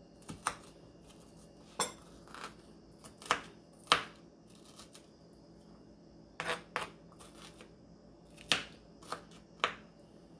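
Kitchen knife chopping diced red onion on a plastic cutting board: about ten irregular knocks, some in quick pairs, with pauses between.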